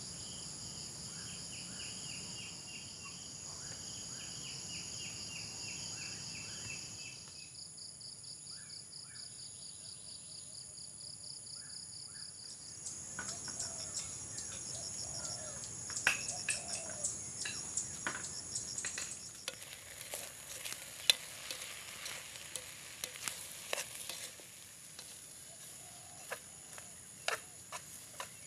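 Crickets and other insects trilling in a steady high chorus with a repeating chirp. After about twelve seconds this gives way to crackling and sizzling with many sharp pops, from a cooking pot over a wood fire.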